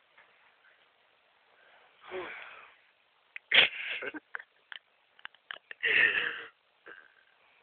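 A sleeping person's wheezy, snoring breaths: one breath about two seconds in, a sharp snort-like intake around three and a half seconds running into a raspy breath, and another wheezy breath near six seconds, with small clicks in between.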